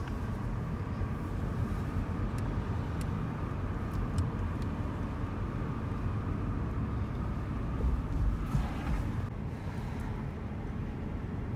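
Steady low road and engine rumble of a car driving at low speed, heard from inside the cabin, with a few faint clicks a few seconds in.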